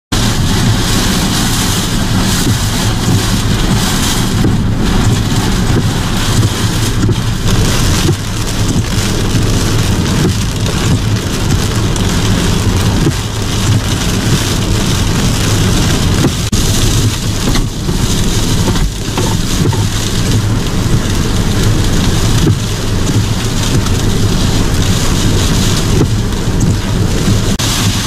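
Hurricane rain pouring down in strong winds, a loud steady rush with a deep rumble underneath.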